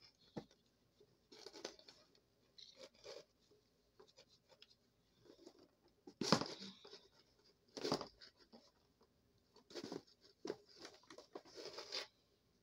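Soft, scattered rustling and scuffing of a Kinby baby doll's cloth outfit being handled and taken off, in short uneven spells, the loudest about six and eight seconds in.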